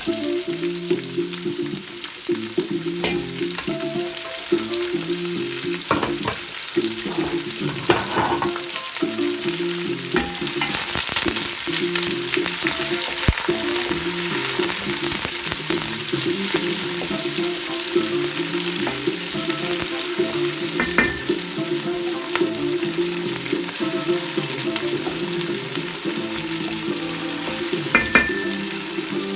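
Chopped garlic and onions sizzling in hot oil in a pan, stirred now and then, with occasional clicks of the utensil against the pan.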